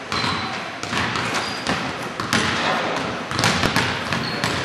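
Basketball bouncing and thudding on a hardwood gym floor, a string of sharp knocks ringing in the hall, with a few short high squeaks.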